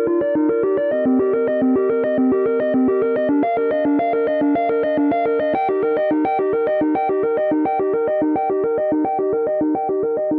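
iPhone ringtone playing: a synth keyboard melody of quick, evenly repeated notes, about seven a second.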